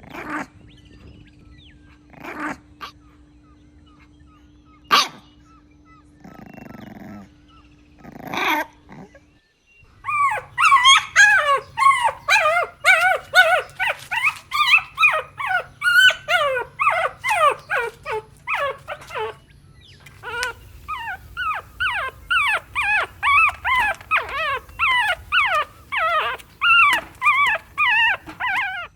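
Golden retriever puppy yelping and whining in a rapid run of short, high calls that fall in pitch, about two or three a second, starting about ten seconds in. Before that there are only a few scattered knocks over a faint steady hum.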